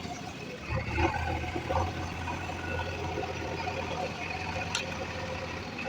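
Heavy diesel engine running steadily with a deep, even hum.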